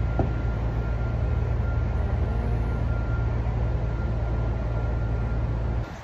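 Steady low rumble of city background noise with a faint steady whine over it, dropping off suddenly near the end.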